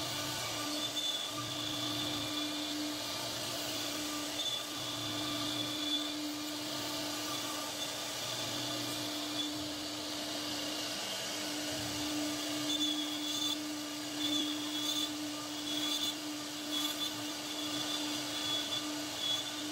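CNC router spindle carving a relief pattern into a wooden panel: a steady pitched whine over noisy cutting, its tones fading out and back every second or two as the bit moves through the wood.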